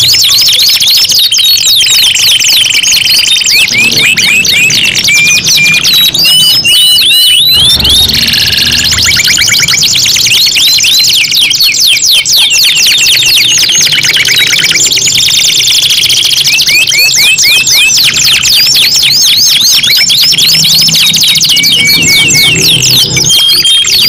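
Several domestic canaries singing without a break, their songs overlapping: fast trills of rapidly repeated sweeping high notes, with briefly held high rolls.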